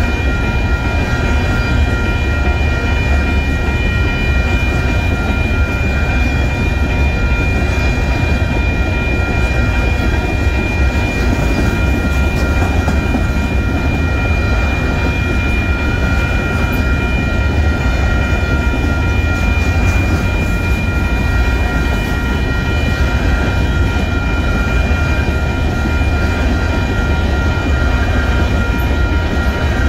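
Freight train of covered grain hopper cars rolling past at a grade crossing, a steady rumble of the cars going by. Several steady high-pitched ringing tones sound unbroken over the rumble.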